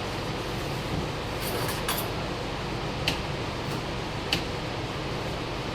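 Steady mechanical hum with a few light, sharp clicks spread through it.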